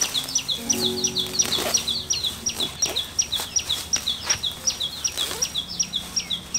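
A bird calling over and over, about four short high chirps a second, each sliding downward. Under it, soft rustling and thumps as freshly pulled amaranth plants are shaken to knock the soil off their roots.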